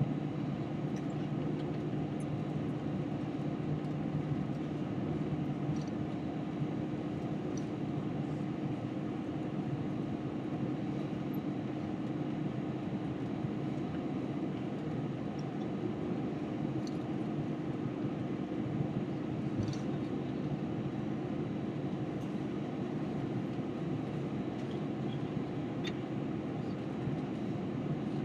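Steady hum inside an Airbus A321 cabin on the ground: the engines running at low power and the air conditioning blowing, with a few faint clicks.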